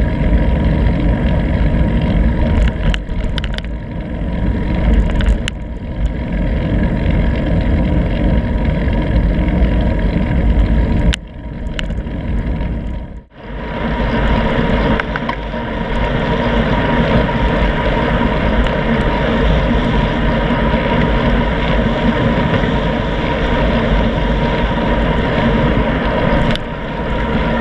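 Wind rushing over the microphone of a handlebar-mounted action camera on a moving bicycle, with road and tyre rumble underneath. The sound dips out briefly about halfway through, then carries on.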